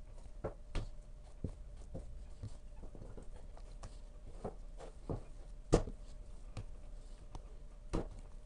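Hands kneading soft youtiao dough in a baking dish: irregular soft thuds and slaps as the dough is pressed, folded and knocked against the dish, with one louder knock a little before six seconds in and another near the end.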